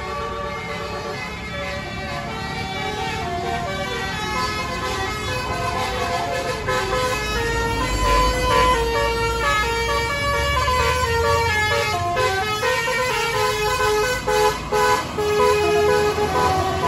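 A tour bus's Basuri telolet horn playing a melody of held, stepping notes. Under it a deep engine rumble swells about halfway through, and the horn breaks off briefly a couple of times near the end.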